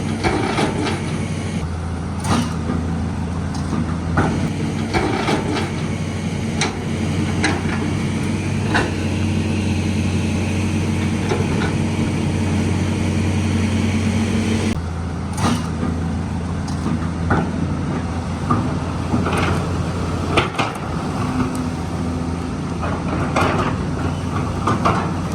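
Large excavator's diesel engine running steadily under hydraulic load, with irregular knocks and clanks from the arm and bucket working.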